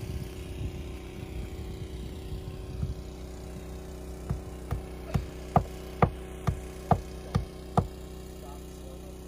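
A steady low machine hum, like a small engine running, with a run of about nine sharp knocks about two a second starting some four seconds in.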